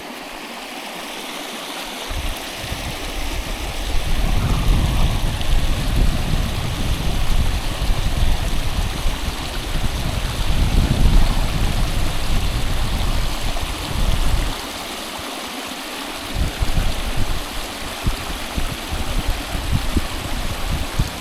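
Small mountain stream rushing over rapids, a steady wash of water that grows louder over the first few seconds. A heavy low rumble lies under it for most of the time, easing off for a couple of seconds about two-thirds of the way through.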